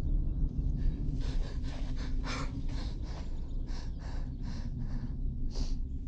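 A person breathing fast and heavily, about a dozen quick breaths at two to three a second, over a steady low rumble.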